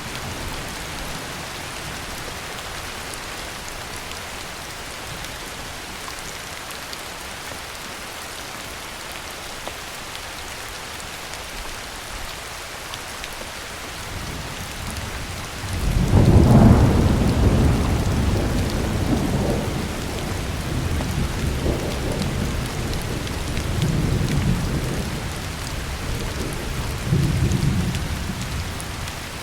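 Heavy rain falling steadily, with a long roll of thunder breaking in a little past halfway, loudest at its start and rumbling on in waves until near the end.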